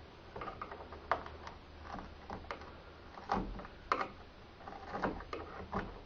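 Scattered light clicks and taps of hand work on a door's latch and striker hardware, with a few sharper knocks spread irregularly through.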